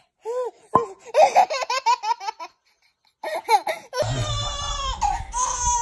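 Babies laughing: a baby giggling in quick, high-pitched bursts, then, after a cut at about four seconds, an infant laughing in a longer stretch over a low rumble.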